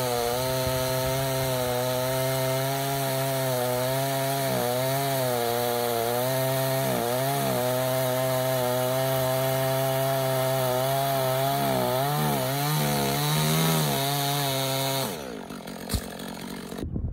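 Two-stroke chainsaw running at full throttle, its pitch repeatedly dipping and recovering as the chain bites into wood. About fifteen seconds in the throttle is released and the engine slows down.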